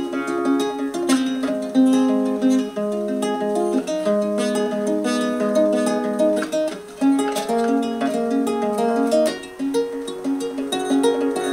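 Solo ukulele playing an instrumental passage of plucked single notes and chords, with no singing.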